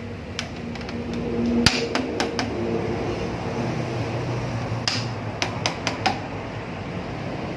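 Scattered sharp knocks and clicks, about ten, from metal parts being handled and tapped while a noodle-making machine is assembled. The loudest comes about two seconds in, and a quick cluster of four or five follows between five and six seconds.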